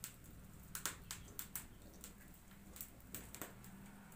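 Scattered faint clicks and crackles from cooking at a wood-fired clay stove, irregular and a few each second, over a low steady hum.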